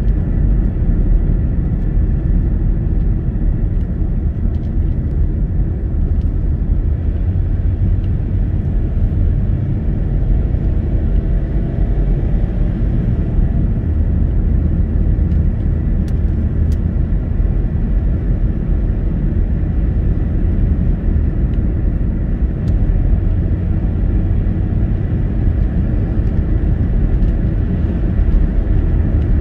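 Steady low rumble of a car cruising on a tarmac road, heard from inside the cabin, with a few faint clicks.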